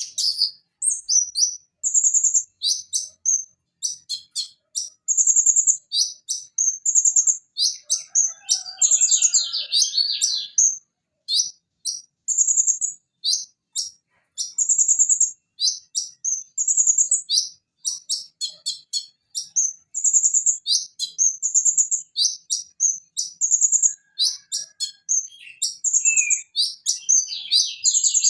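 Konin (Leptocoma sperata sunbird) singing in a fast, continuous run of high-pitched chirps, trills and short held whistles. Phrases follow each other with only brief gaps.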